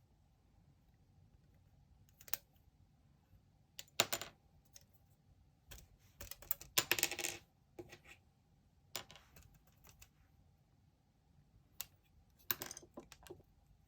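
Hard plastic parts of a Haro model kit being handled and snapped together: irregular light clicks and knocks, with a quick rattling cluster about halfway through and another near the end.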